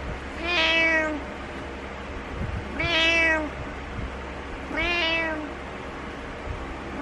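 Domestic cat meowing three times, about two seconds apart, each meow short with a slight rise and fall in pitch: attention-seeking meows to wake its owner.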